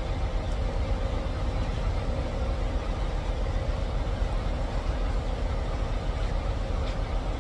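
Steady low diesel rumble and hum at a truck-stop fuel island while a semi's diesel tank is filled from the pump nozzle. There is one light click near the end.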